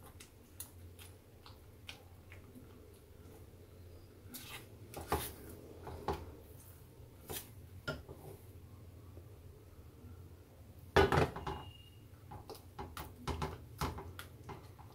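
Silicone spatula stirring thick sauce in a nonstick frying pan, scraping and knocking against the pan in scattered soft clicks and scrapes, the loudest cluster about eleven seconds in.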